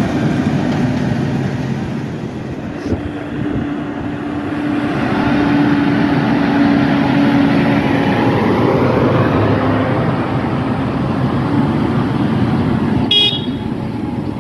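Tractor engines running steadily on the road, with a brief high-pitched sound near the end.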